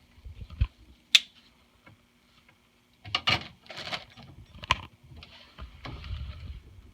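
Hands handling the plastic tubing and fittings of an under-sink water filter: a low knock, a sharp click, then a pause and some rustling with another sharp click.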